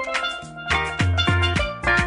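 Steelpan music: quick runs of struck pan notes over a steady drum beat.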